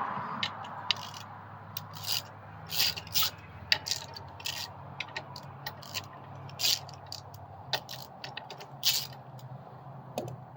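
Irregular metal clinks, knocks and scrapes of handlebars and their clamp hardware being handled and fitted onto a mini bike frame.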